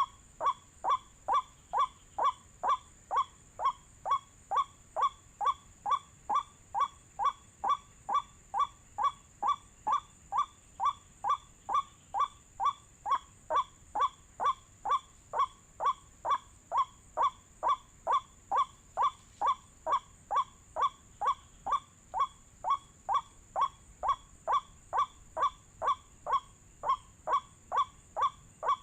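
White-breasted waterhen call played as an MP3 lure: a short, harsh note repeated very evenly, about twice a second.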